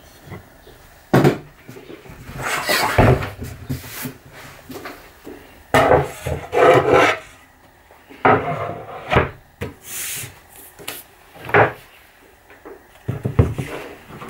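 Wooden jig parts and a wooden board being handled and moved: irregular knocks and clacks of wood on wood, with longer stretches of scraping as pieces slide across each other.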